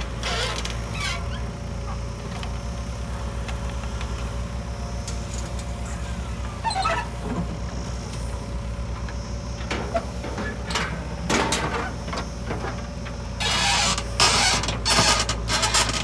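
JCB 3DX backhoe loader's diesel engine running steadily as it digs and loads soil, with a thin steady whine over it. Scattered clanks and scrapes come through, the loudest bunched near the end.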